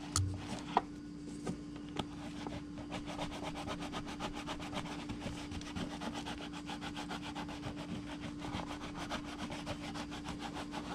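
A few handling knocks, then a leather knife sheath rubbed with fast, even back-and-forth strokes, several a second, from about two seconds in.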